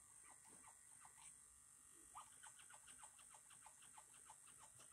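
Faint, even puffing of a small Taolei pneumatic model piston engine running on low air pressure from its little aquarium-style pump, over a steady faint hiss. It goes at about three strokes a second, then picks up to about six a second around two seconds in.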